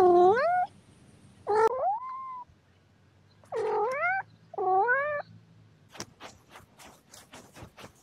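A cat meowing four times, each meow dipping and then rising in pitch, the last two close together. About six seconds in, quick rhythmic scratching begins, about four strokes a second, from a cat's paw scratching at sand.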